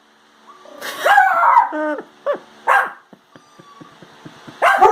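Black Labrador retriever barking and whining excitedly: a drawn-out, pitch-bending whine-bark about a second in, followed by a few short, sharp barks.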